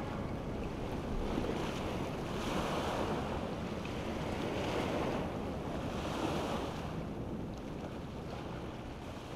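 Small sea waves washing over shoreline rocks, surging about four times and easing off near the end.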